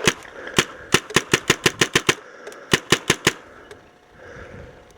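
Paintball markers firing rapid sharp pops: a quick string of about a dozen shots, then a short burst of four more about three seconds in.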